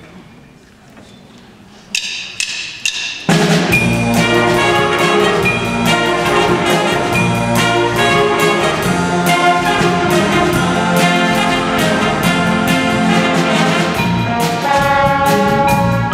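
Jazz big band starting a tune. After a quiet opening, a few short notes sound about two seconds in, then the full band of saxophones, brass and rhythm section comes in loudly about three seconds in and plays on steadily.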